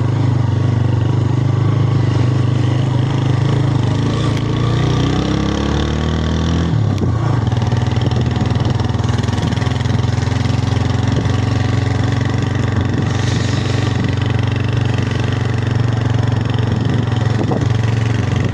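A motor vehicle's engine running steadily. Its pitch climbs for a couple of seconds, drops abruptly about seven seconds in, then holds even.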